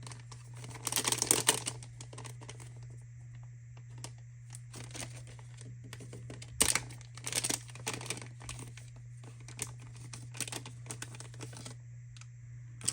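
Plastic packaging of a thermal paste tube crinkling and tearing as it is opened by hand, in irregular bursts with small clicks, the strongest about a second in and again around the middle, over a steady low hum.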